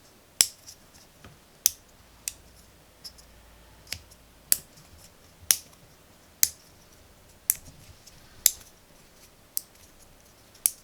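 Switches set in the faces of a 3D-printed cube fidget toy being pressed one at a time: about a dozen sharp clicks, roughly one a second, unevenly spaced.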